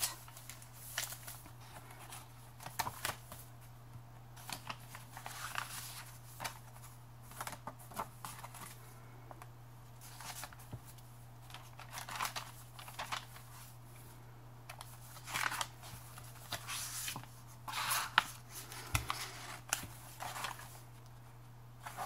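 Paper pages of a handmade junk journal being turned and handled: short, irregular rustles of paper, over a faint steady low hum.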